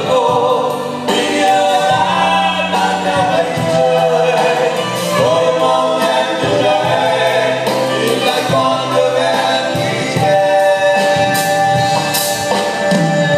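Live amplified pop ballad: a male singer holding long sung notes over band accompaniment, with a fuller, choir-like vocal sound at times.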